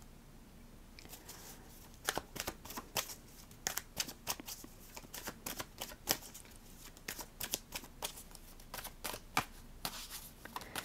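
A tarot deck shuffled by hand, the cards snapping and tapping against each other in a quick, irregular run that starts about a second in.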